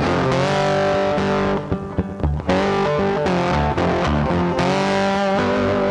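Background music: an electric guitar track with distortion, briefly dropping back for about a second in the middle.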